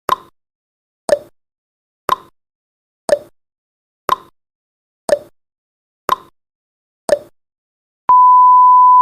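Countdown timer sound effect ticking once a second, eight sharp ticks in a row. About a second before the end a steady single-pitched beep starts and holds as the countdown runs out.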